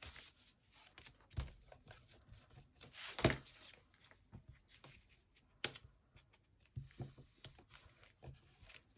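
Scraps of paper and card rustling and sliding as they are picked up, handled and laid onto a paper journal page, with scattered light taps. The loudest rustle comes about three seconds in.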